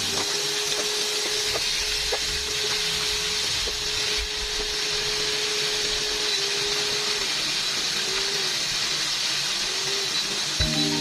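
Chicken pieces deep-frying in a pot of hot oil, a steady, even sizzle.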